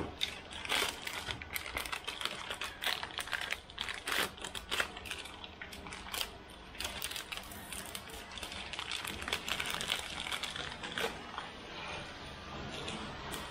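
Irregular light clicks, clinks and rustling of small metal engine parts being handled as piston rings and bearing shells are fitted to pistons, busiest in the middle of the stretch.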